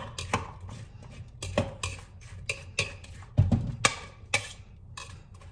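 A spoon stirring diced apples in a bowl, tossing them with lemon juice, with irregular clicks and knocks of the spoon against the bowl, loudest about three and a half seconds in.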